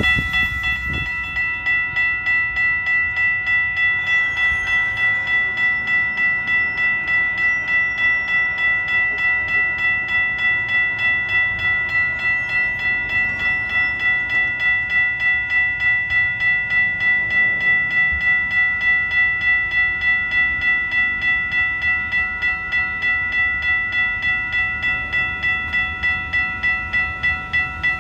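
Railroad grade-crossing warning bell ringing in a fast, even, unchanging ding, about two to three strokes a second, as the signals are active for an approaching train.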